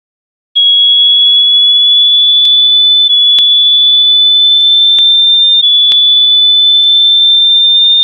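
A single loud, high-pitched electronic beep tone that holds steady, creeping slightly up in pitch in three small steps, with a few faint clicks over it.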